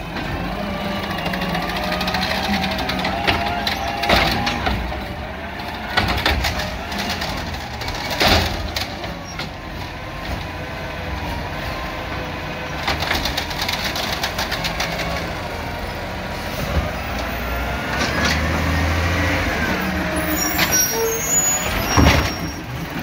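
Amrep automated side-loader garbage truck working a curbside cart: the diesel engine runs and rises in pitch with the hydraulic whine of the arm as it grabs, lifts and dumps the cart, with several sharp knocks and bangs of the cart and arm against the hopper.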